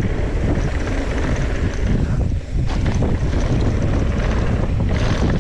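A mountain bike descends fast, with wind rushing over the bike-mounted camera's microphone, the tyres rolling on a wooden bridge and then on dirt, and the bike rattling over the bumps.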